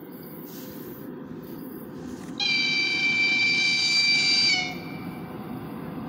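An electric locomotive's high-pitched whistle sounds once for about two seconds, starting a little over two seconds in, over the steady low rumble of the approaching train.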